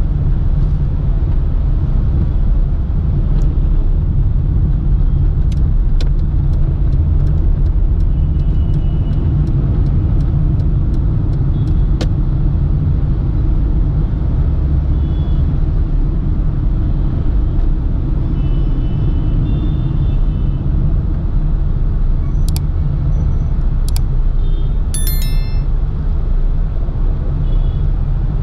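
A car driving in city traffic: a steady low rumble of engine and road noise, with scattered sharp clicks and a few short high tones.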